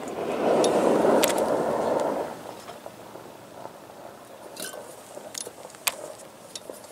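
Sea Foam motor treatment poured from its plastic bottle onto a plastic chair seat. The liquid splashes loudly for about two seconds, then trickles, with a few light clicks from handling the bottle.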